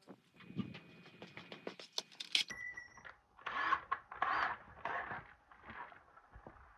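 Hand-tool work on a van's rear door: light clicks and taps, a sharp metallic clink that rings briefly about two and a half seconds in, then four or five scraping strokes about half a second apart.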